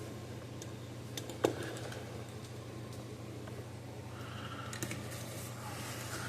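Light clicks and taps of small tools and parts being handled during soldering work on a workbench, with one sharper tap about one and a half seconds in, over a steady low hum.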